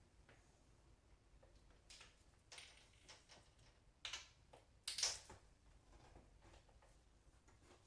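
Pella fibreglass window sash being pivoted upright and pushed into its frame: a few short scrapes and knocks, the loudest about five seconds in, against near silence.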